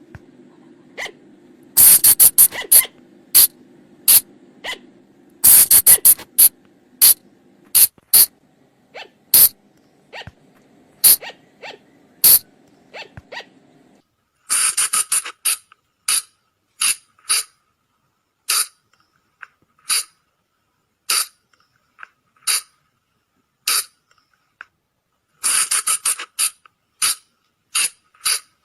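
Sunda flying lemur (colugo) calls: short, sharp, shrill cries, some single and some in quick clusters, coming every second or so. A low background hum stops abruptly about halfway through.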